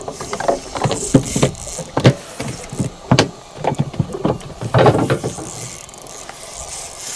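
Spinning reel cranked and rod worked while a hooked hampala barb is pumped in: irregular clicking, rattling and knocking, loudest in clusters about a second in and again around five seconds in.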